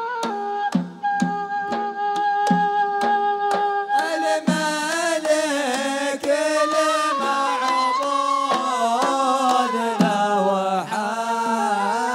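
Zarbadi music: a flute melody over steady drum beats on a large double-headed drum and hand drums, joined about four seconds in by men's voices singing the poem over the drums.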